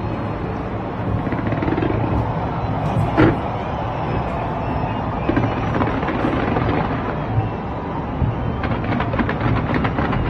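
Fireworks going off in a continuous barrage of bangs and crackling, with one loud bang about three seconds in and a quick run of crackles near the end.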